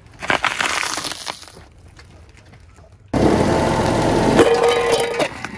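A car tyre crushing a bundle of painted plant stems: a burst of crunching and cracking lasting about a second and a half. About three seconds in, a louder steady noise starts abruptly and runs for about two seconds, with a held tone near its end.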